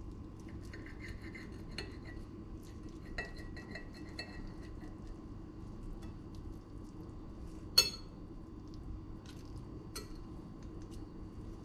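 Knife and fork clinking and scraping on a ceramic plate as an omelette is cut, with one sharp, much louder clink about two-thirds of the way through.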